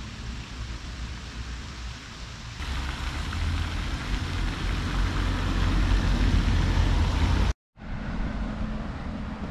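Outdoor ambience across cut shots: first a steady street hush, then a park fountain splashing into a pond, a louder steady hiss of falling water with a low rumble. It cuts off suddenly about seven and a half seconds in, followed by quieter street ambience with a faint steady hum.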